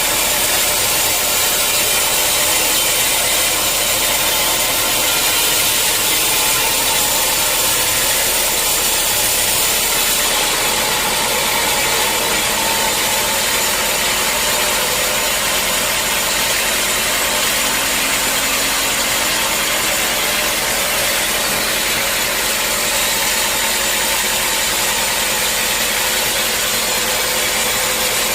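Sawmill saw and its drive running steadily: a loud, even machine noise with a constant hum, which changes slightly about ten seconds in.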